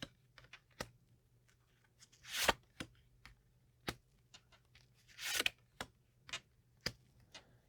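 Tarot cards being handled: two card swishes, about two and a half and five and a half seconds in, among scattered light clicks and taps of cards laid down.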